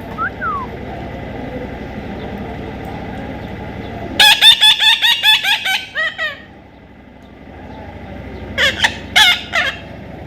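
Parrot calling in two rapid runs of harsh squawks: about eight in quick succession about four seconds in, then three or four more near the end, with a faint short chirp at the start.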